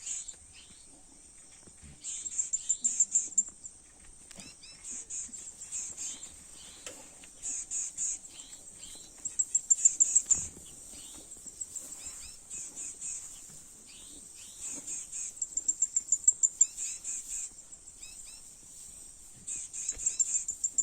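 High-pitched insects trilling in rapid pulsed bursts that come and go every second or two, with scattered short bird chirps.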